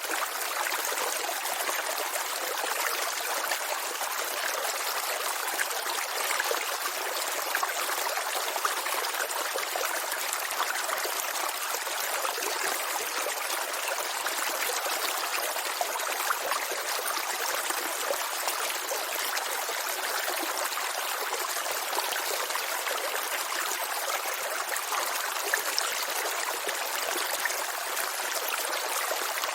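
A small brook's water trickling and gurgling over stones, heard at close range, a steady babble with no low rumble.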